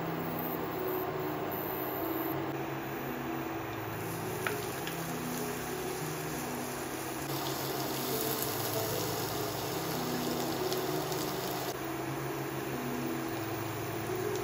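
Sliced onions sizzling as they fry in hot olive oil in a nonstick pan, a steady hiss that gets brighter for a few seconds in the middle.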